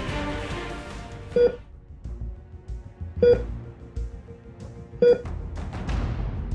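Medical monitor beeping three times, evenly about every two seconds, each a short beep, over soft background music.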